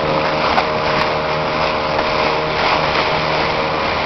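A small boat's engine running steadily under way, with an even hum over a constant rush of water and wind.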